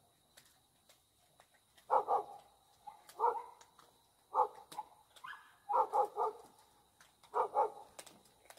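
A dog barking: about nine short barks in groups of one to three, spread over several seconds.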